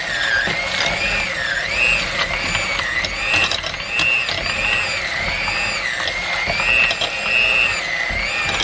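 Electric hand mixer running with its beaters in a crock of cooked chicken, shredding the meat. The motor's whine rises and falls over and over as the beaters bog down in the meat and free up again, with scattered clicking and rattling.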